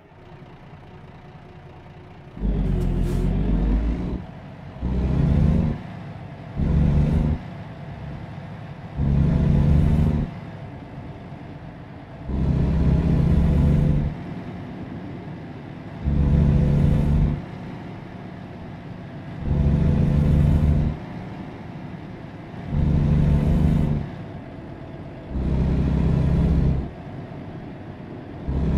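An engine revving in repeated short bursts, each lasting a second or two and ending in a rising hiss, about every two to three seconds over a steady low idle.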